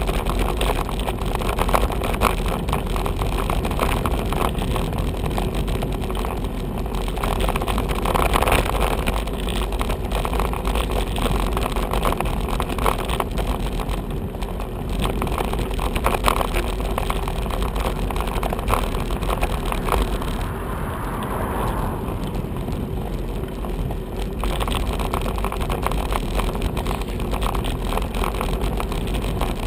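Steady rumble of a bicycle riding over a rough, broken road surface, picked up by a bike-mounted camera with many small knocks and rattles, while cars pass. A falling pitch partway through fits a car going by.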